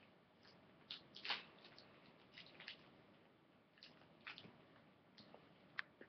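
Faint, scattered crinkles and clicks of a thin plastic bag being handled as a scrunchie is wrapped around its top; about a dozen short crackles at uneven intervals, the loudest about a second in.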